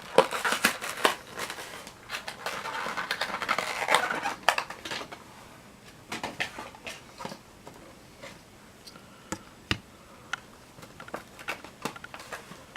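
Plastic blister packaging of a diecast model car being handled and opened: a dense spell of crinkling and crackling with many clicks in the first few seconds, then scattered separate clicks and taps.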